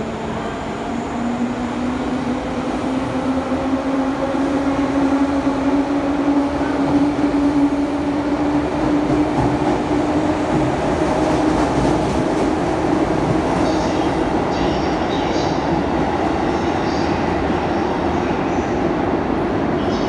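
JR 205-series electric commuter train pulling out of an underground station: a motor whine climbs in pitch over the first ten seconds or so as the train gathers speed, over a rumble of wheels on rail that grows louder, with brief high-pitched wheel squeals in the second half.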